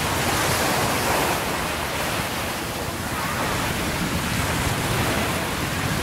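Sea waves washing around a wader in the shallows: a steady rushing noise that swells and eases slightly.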